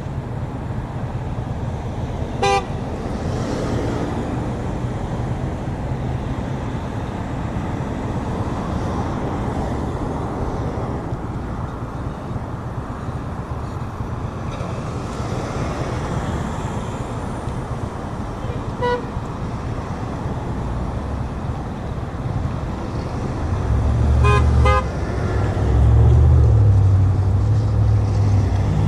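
Road traffic passing steadily, with car horns tooting briefly: once about two seconds in, once about nineteen seconds in, and a quick double toot near the end. The horns are drivers honking in support of a roadside sign. The traffic gets louder in the last few seconds.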